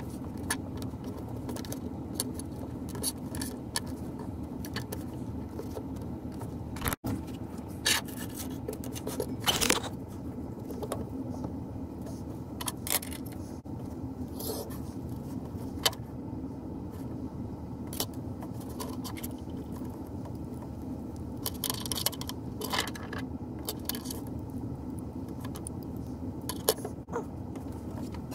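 Scattered clinks, taps and scrapes of a metal belt buckle and small tools being handled and set down on a workbench, over a steady low hum.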